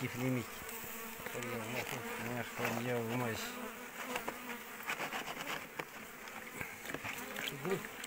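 Honeybees buzzing close by, the buzz swelling and bending up and down in pitch as they fly past, while the comb of a wild hive is being cut out. In the second half, scattered short knocks and scrapes of a tool working in the cavity.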